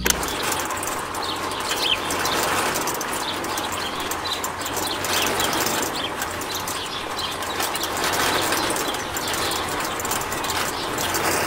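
Miniature DIY concrete mixer running: its small electric motor turns the can drum through a plastic gear, a steady whirring rattle.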